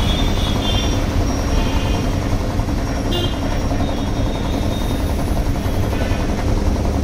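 Belt-driven single-piston air compressor pump, driven by a 0.5 hp single-phase Crompton electric motor, running with a steady, fast, even chugging.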